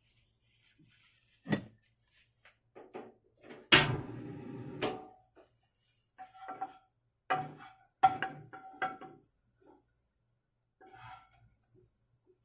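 Gas stove burner being lit: a sharp click and about a second's rush as the gas catches, nearly four seconds in. Then a few light knocks and clinks against the frying pan.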